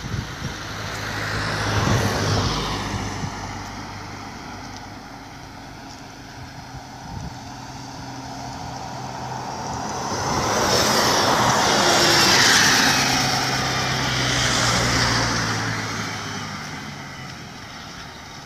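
Articulated diesel city bus driving past while climbing a hill: the engine hums steadily under load over tyre noise, swells loudest as it passes about ten to fifteen seconds in, then fades as it pulls away. Another vehicle passes about two seconds in.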